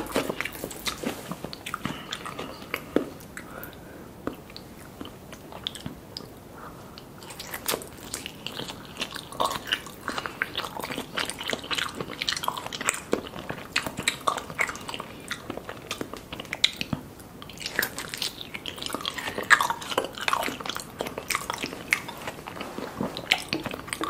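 Close-miked chewing of raw salmon sashimi: irregular wet smacks and clicks of the mouth.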